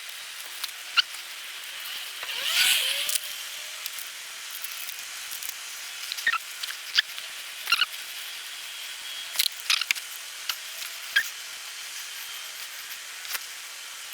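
Scattered small clicks and snips of hand tools working on electrical wires being spliced, with a short rasping noise about two and a half seconds in. A faint steady hum runs underneath.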